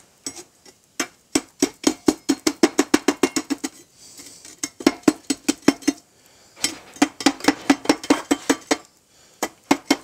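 A flat steel bar tapping rapidly, about eight sharp metallic clinks a second, in three runs with short pauses, as wet castable refractory is worked in the furnace.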